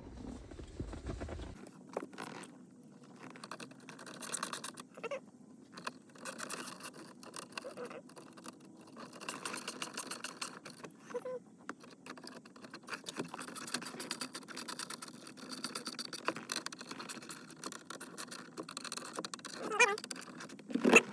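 Hand work on small car-interior parts: irregular light clicks, taps and rattles, with two louder knocks near the end.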